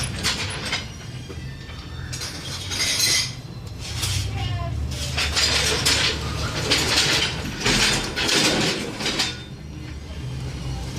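Metal engine parts and hand tools clinking and scraping in irregular bursts over a low steady hum, as camshaft bearing caps on a cylinder head are worked on, fitted and polished where a camshaft was binding.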